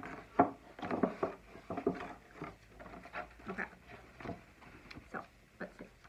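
A cardboard cereal box and the paper and wrapping inside it being handled and rummaged through: a quick run of crinkles, rustles and taps that thins out to a few single taps near the end.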